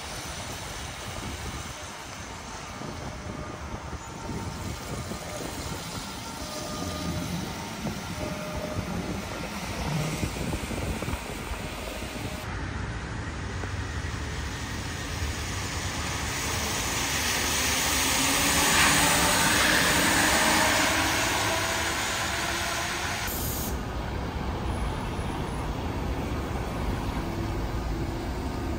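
Traffic on wet roads, then a Solaris electric trolleybus passing close, its tyres hissing loudly on the wet asphalt about two-thirds through. A whine from its electric drive rises in pitch as it pulls on.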